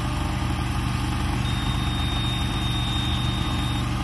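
Automated rail welding machine's power unit running with a steady, even low drone while the rail ends are heated, a faint high whine coming in partway through.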